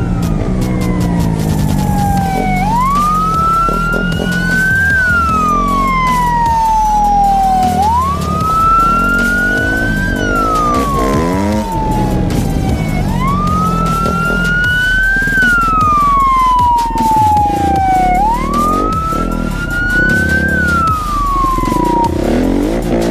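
Police car siren wailing, rising quickly and falling slowly in a cycle of about five seconds, over and over. A motorcycle engine runs underneath.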